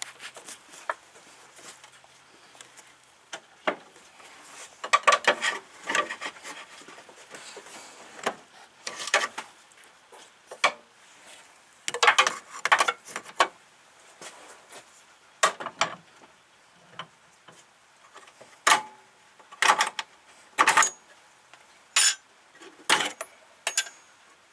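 Hand tools and metal parts clinking and scraping: clusters of rubbing and clattering, then a string of sharp clicks roughly a second apart near the end.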